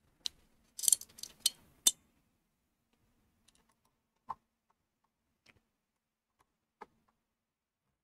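Small parts handled by hand on a workbench: a quick run of sharp clicks and rustling in the first two seconds, then a few scattered light clicks.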